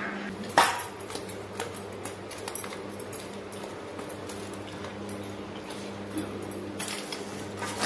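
Steady low hum with a few scattered sharp clicks and knocks, the loudest about half a second in.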